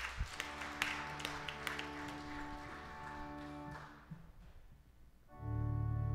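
Instrumental music of long held chords, with a few knocks in the first two seconds. The chord fades away after about four seconds, and a louder chord with a strong bass comes in shortly before the end.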